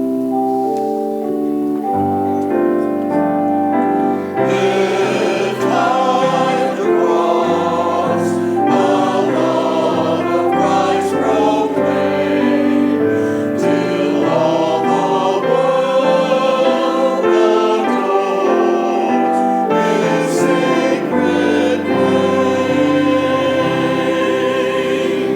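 Church choir singing a slow sacred piece over held keyboard chords with a deep bass line. The music comes in suddenly at the start and stops near the end.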